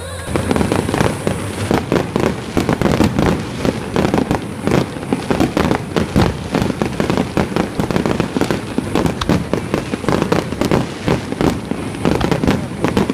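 Fireworks display going off in a rapid barrage: many sharp bangs a second, overlapping without a pause.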